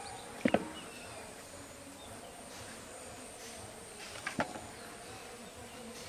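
Steady high-pitched insect drone in rural open air, broken by two sharp double clicks, about half a second in and again about four seconds in.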